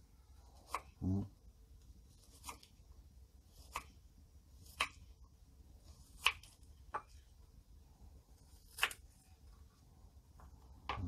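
Kitchen knife slicing an onion on a wooden cutting board: sharp single knocks of the blade reaching the board, about seven of them at uneven gaps of one to two seconds.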